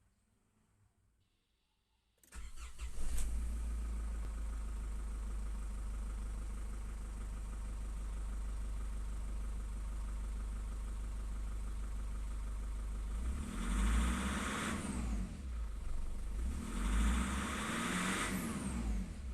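Nissan Patrol's ZD30 3.0-litre four-cylinder turbodiesel starts about two seconds in and settles into a steady idle, then is revved up and back down twice near the end.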